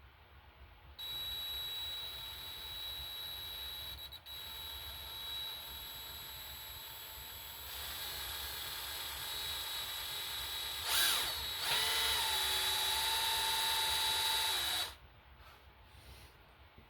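Electric drill boring into a broken bolt in an engine block, running as a steady whine. It dips briefly about four seconds in and gets louder around eight seconds. Near eleven seconds it surges, then settles to a lower pitch, and it stops suddenly about fifteen seconds in.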